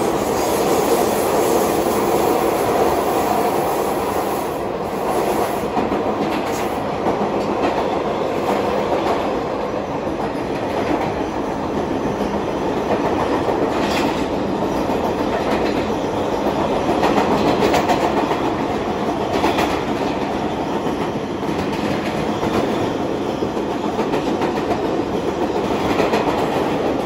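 R160B Siemens subway car running at speed, heard from inside the car at its end door: a steady rumble of steel wheels on rail, with scattered clacks over rail joints.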